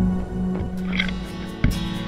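Background music: held notes with one sharp percussive hit about a second and a half in.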